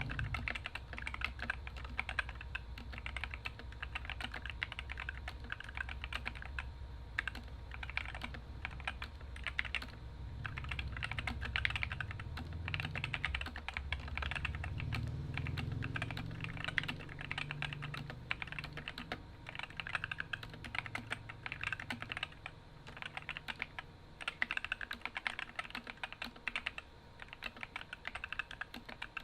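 Continuous fast typing on an Epomaker SK64 keyboard with stock, unlubed Gateron optical red linear switches and ABS keycaps: a dense, irregular stream of key clacks. A low hum runs underneath and swells in the middle.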